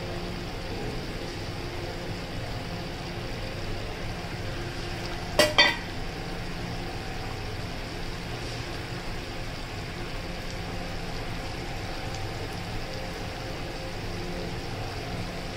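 Onion-tomato masala simmering in a metal kadai over a gas flame, a steady bubbling sizzle under a constant hum, as it is cooked down until the oil separates. About five and a half seconds in, two sharp metal clinks in quick succession.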